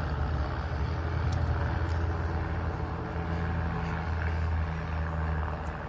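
Steady drone of Team Raven's Van's RV-8 single-engine propeller aircraft flying a formation display, heard from the ground.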